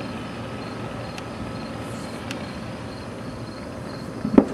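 Distant fireworks booming, with one short low thud near the end and a couple of faint cracks earlier, over a steady outdoor background hum with faint crickets chirping.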